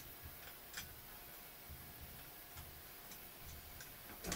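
Faint, irregular small plastic clicks and taps as the HP 650 laptop's screen bezel is handled and pried loose, with a sharper click near the end.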